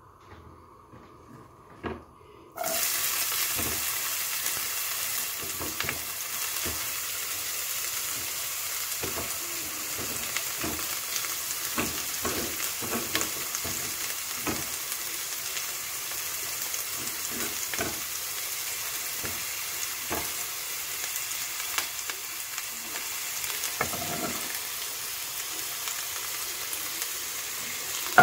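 Chopped red onion frying in hot oil in a non-stick pot: a steady sizzle that starts suddenly a couple of seconds in, with light knocks of a wooden spoon stirring against the pot.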